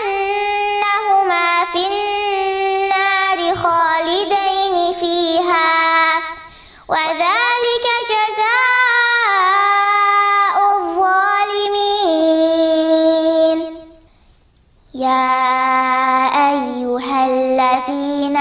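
A girl's solo voice reciting the Quran in melodic tajweed style, with long held, ornamented notes. She breaks for breath about six seconds in and again near the end, then resumes on a lower pitch.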